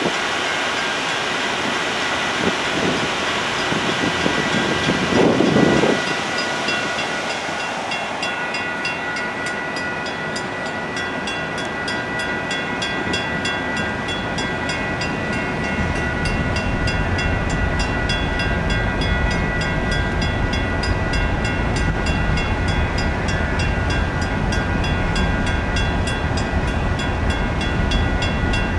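Loaded aggregate hopper cars of a freight train rolling past with a steady rumble and rail noise, heavier in the low end in the second half. From about a third of the way in, a level-crossing warning bell rings steadily, about three strokes a second.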